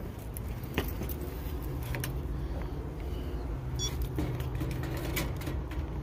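Scattered light clicks and rattles of a multimeter and its test leads being handled, over a steady low outdoor rumble.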